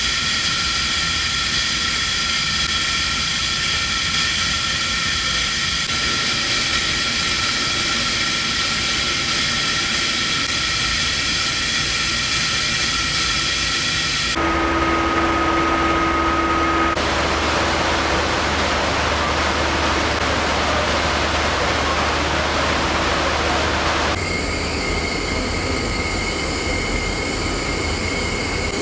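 Steady industrial machinery noise in a heat and power plant: a loud hum and hiss with several steady whining tones. The mix changes abruptly a few times, with a strong low hum and a clear single tone in the middle stretch.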